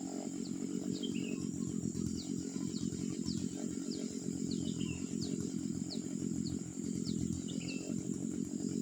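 A 43cc two-stroke brush cutter engine running steadily, with birds giving short, repeated falling chirps over it and a steady high insect buzz in the background.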